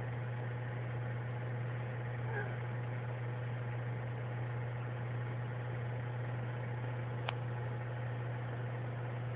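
A steady low hum, with one faint sharp click about seven seconds in.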